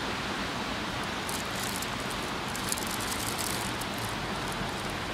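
Steady rain on a station platform over a low background rumble, with a spell of crackling spatter a second or so in.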